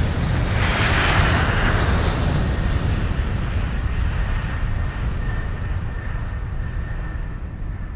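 Logo intro sound effect: a whoosh like a passing jet swells about a second in and slowly dies away over a steady low rumble, growing duller as it fades. A faint steady high tone comes in about halfway.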